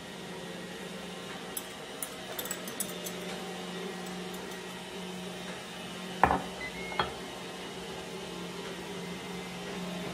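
Kitchen handling sounds: a metal whisk clinking lightly against glassware a few times, then a sharp knock about six seconds in and a lighter one a second later as a glass measuring jug is set down on the granite counter, over a steady low hum.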